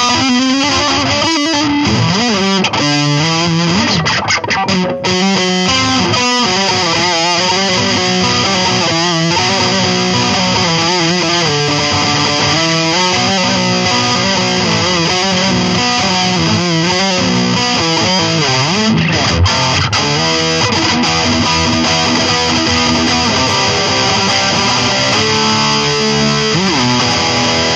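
Electric guitar played through a Line 6 Spider IV 15 modelling amp on its Metal channel: distorted, sustained notes with wide bends and vibrato, played without a break.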